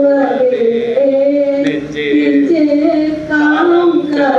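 Devotional singing: voices holding long notes that move slowly up and down in pitch.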